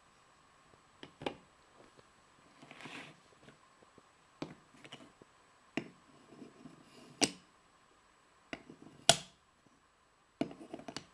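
Painted wooden toy blocks and train carts knocking and clacking as they are handled and stacked onto the carts' pegs, a sharp wooden click every second or two. There is a brief scrape about three seconds in.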